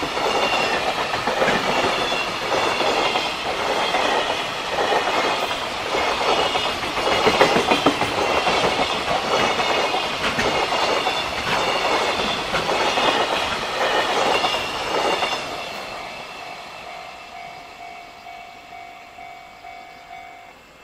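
Long freight train of container flat wagons passing close by, the wheels clattering regularly over the rail joints, then fading away as the last wagons go past about 15 seconds in. A level-crossing warning bell keeps ringing steadily and stops just before the end.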